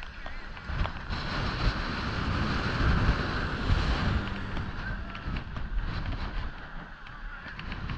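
Wind buffeting the microphone of a bicycle-mounted action camera while riding, a low rumble that swells about two seconds in and eases off after the middle.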